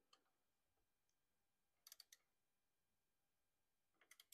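Very faint metal clicks of a hand tool working a screw on the motorcycle's primary case back cover: a quick group of about four clicks about two seconds in and another group near the end.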